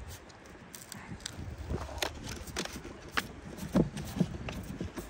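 Hands pressing and smoothing a self-adhesive EVA foam pad onto a trolling-motor foot pedal: scattered soft taps, rubs and clicks, more of them from about two seconds in, over a low rumble of wind on the microphone.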